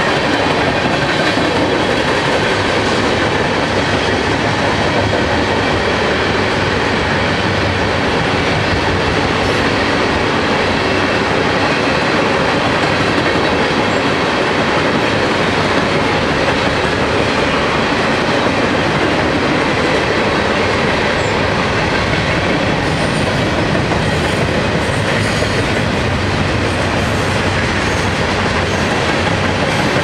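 A freight train's tank cars and covered hopper cars rolling past. Their steel wheels make a steady, continuous noise on the rails.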